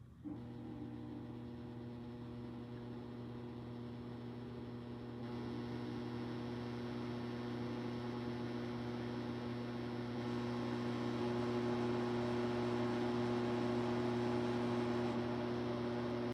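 Dreo tower fan running: a steady motor hum over airflow noise that starts just after the beginning and grows louder in steps, about five and again about ten seconds in.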